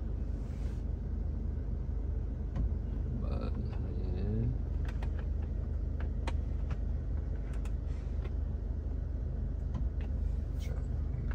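Steady low rumble of a Toyota Hilux's 2.8-litre diesel engine running, heard inside the cabin, with scattered faint clicks.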